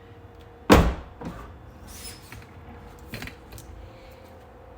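A single sharp clunk about three-quarters of a second in, followed by a few lighter clicks, from a Tesla Model S door handle and latch being worked.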